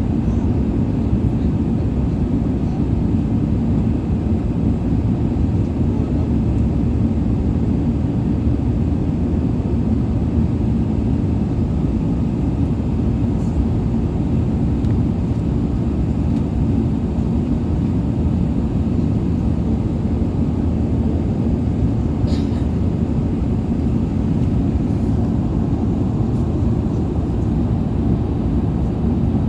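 Steady low rumble of an Airbus A380-800's engines and airflow heard inside the passenger cabin, holding an even level throughout. A single short click about two-thirds of the way through.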